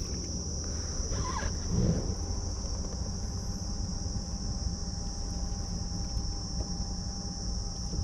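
Steady, high-pitched drone of an insect chorus, over a low background rumble, with a brief louder low sound about two seconds in.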